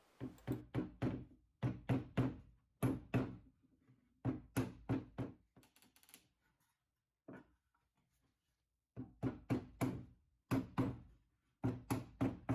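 Rubber mallet knocking wooden fishing-pole holders down into glued dados in a wooden base: quick runs of two to four blows, with a longer pause past the middle.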